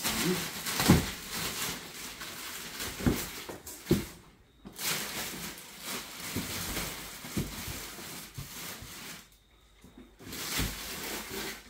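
Plastic wrapping crinkling and rustling as it is pulled and torn off a packed item, in three spells with short pauses between, and a few knocks along the way.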